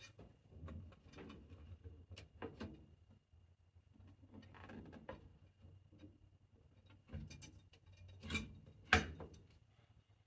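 Mosin Nagant M91/30 barreled action being seated into its wooden stock: scattered light knocks and scrapes of metal against wood, with two sharper knocks close together near the end as it drops into place.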